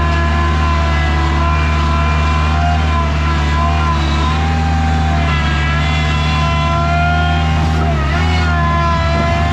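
A skid steer's engine running steadily, with a higher whine over it that wavers and dips briefly about eight seconds in.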